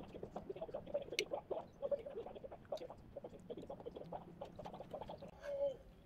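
Close-up chewing of crunchy shredded-cabbage salad and kimbap: rapid, irregular crisp crunches and mouth clicks, with one short louder sound near the end.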